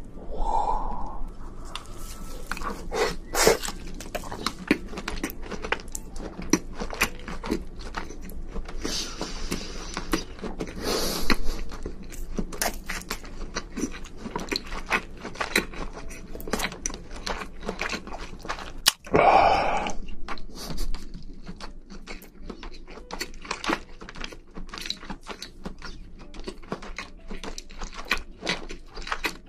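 Close-miked ASMR chewing of cooked prawn meat: a dense run of wet mouth clicks and smacks. Two longer, louder mouth sounds come about a second in and again about two-thirds of the way through.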